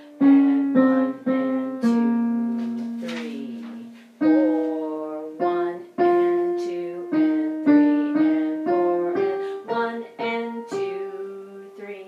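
Piano playing a melody line in the middle register, one note after another, each struck sharply and dying away, some with a lower note sounding underneath.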